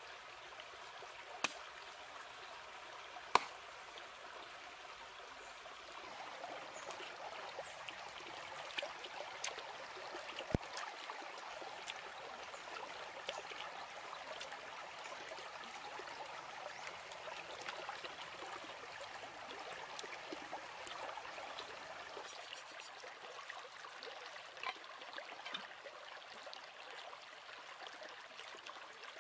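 Shallow stream running over rocks, a steady babbling of water. A few sharp knocks stand out over it in the first ten seconds.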